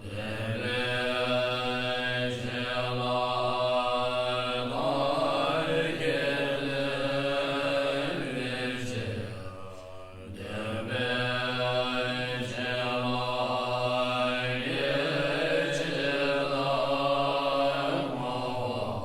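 Chanted mantra: a voice intoning long held tones in two phrases of about ten seconds each, with a brief break between them about halfway through.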